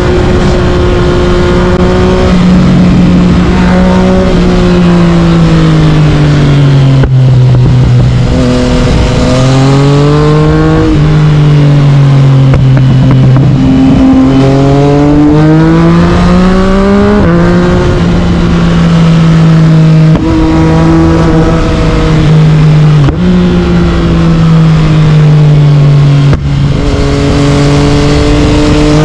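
Yamaha MT-09's inline three-cylinder engine through an Akrapovic carbon aftermarket exhaust, ridden hard: the note climbs under acceleration, drops sharply at each of several gear changes, and falls away when the throttle closes.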